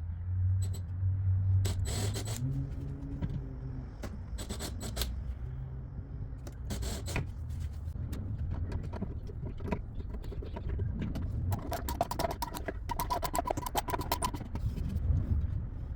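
Hand work on a drawer lock: scraping, knocking and small metal clicks and clinks, with a quick run of rapid metallic clicks near the end.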